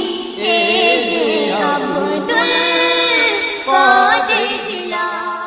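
Singing of a Bengali Islamic gojol (kasida): a melody of long, wavering held notes. It trails off near the end as the song closes.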